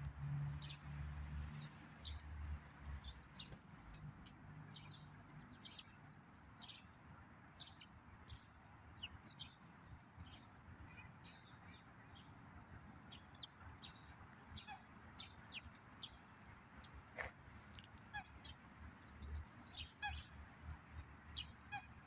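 Birds calling: many short, high chirps, scattered irregularly and often overlapping, with a low rumble in the first few seconds.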